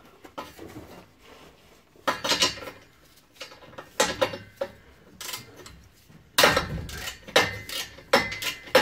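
Ratchet and socket clinking and rattling on a rusty bolted exhaust flange as the bolts holding the front flexi pipe to the exhaust pipe are undone. Scattered sharp metal clinks, busier and more frequent in the last couple of seconds.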